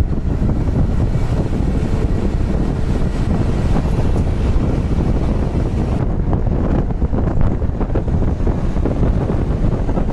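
Steady engine and road rumble heard from inside a moving non-AC bus at highway speed, with wind buffeting the microphone at the window. The high hiss drops away suddenly about six seconds in.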